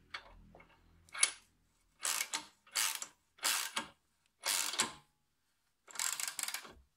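Hand ratchet wrench clicking in five short bursts, tightening the bolt of a homemade extractor that presses out an exhaust manifold flange stud bolt. A few light metal clicks come before the first burst.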